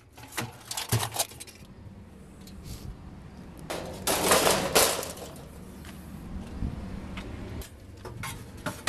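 Light clinks and rattles of metal refrigerator parts being handled during a teardown, with a louder scraping rustle about four seconds in.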